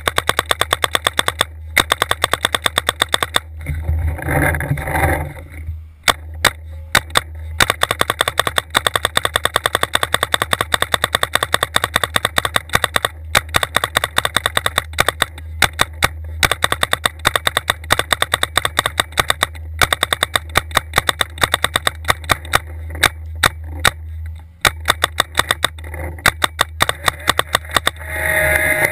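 Planet Eclipse Geo2 electropneumatic paintball marker firing on semi-auto capped at 15 balls per second: long rapid strings of shots broken by short pauses.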